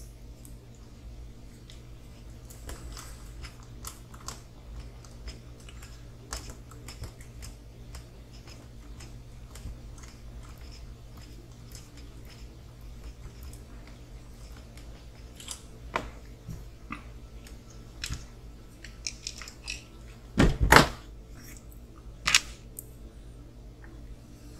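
Small RC car kit parts handled on a workbench: scattered light clicks and taps of plastic and metal pieces as axles and drive shafts are fitted, with a louder knock about twenty seconds in and a sharp click just after, over a steady low hum.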